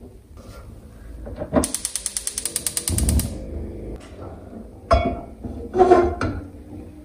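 A rapid run of even mechanical clicks, about a dozen a second for under two seconds, like a ratcheting mechanism. It is followed by two short, loud clatters.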